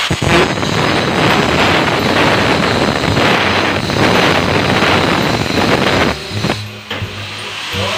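Power saw cutting a Hardiflex fibre-cement board: loud, rough cutting noise that stops abruptly about six seconds in.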